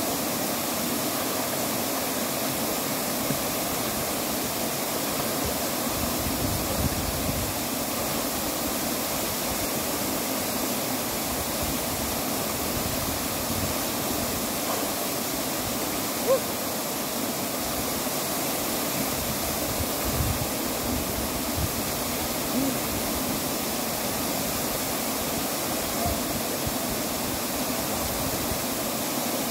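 Waterfall plunging into a pool: a steady rushing roar of falling water, with one brief sharper sound about halfway through.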